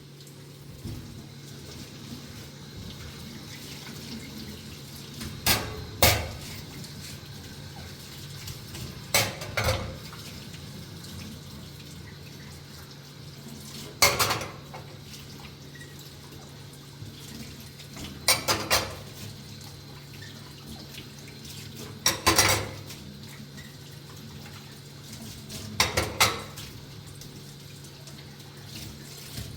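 Dishes clinking and knocking together in short clusters of two or three strikes, about every four seconds, as in washing up. Under them is a steady low hum.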